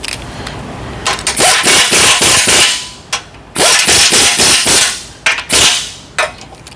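Impact wrench hammering on a bolt in two long rattling bursts, then a short one near the end: bolts being run down and tightened.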